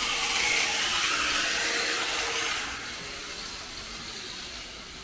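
A loud, steady hissing rush that drops away about two and a half seconds in, leaving a fainter hiss.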